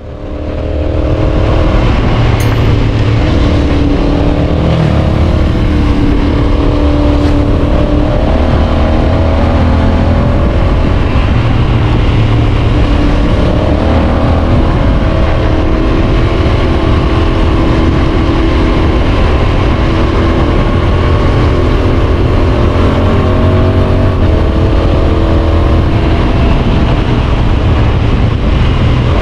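Yamaha Tracer 7's 689 cc parallel-twin engine through a GPR exhaust, running under way, its revs rising and falling gently. The sound fades in over the first second or two.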